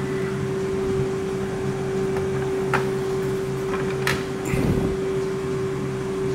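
BKN-S82 soft-serve ice cream machine running while it dispenses, its twin refrigeration compressors and beater motors giving a steady hum with one constant tone. A few light clicks fall around the middle, and a brief low rumble comes about four and a half seconds in.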